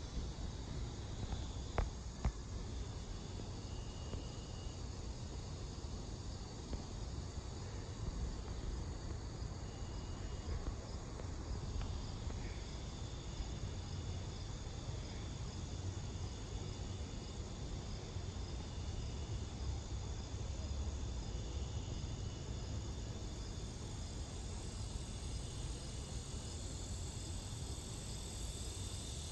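Crickets and other insects chirping steadily, with short trills coming and going, over a low steady rumble. A single sharp click about two seconds in.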